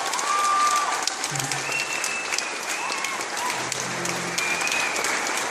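Audience applauding, a dense steady patter of many hands, with a few whistles held briefly over it.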